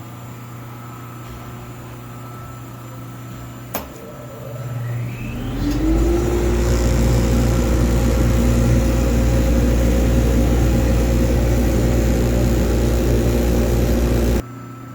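Abrasive blast cabinet switched on with a click over a steady machine hum: a motor spins up with a rising whine, then runs loudly and steadily before cutting off suddenly near the end.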